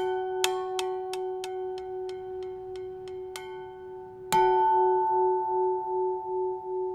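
Small church bell tapped in a quick run of light strikes, about three a second, that fade out, then struck hard once about four seconds in and left to ring, its low hum note pulsing slowly as it decays.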